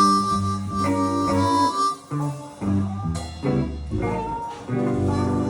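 Live blues band playing the closing bars of a slow blues, harmonica leading over guitar and upright bass in short stop-start phrases, then settling into a held chord near the end.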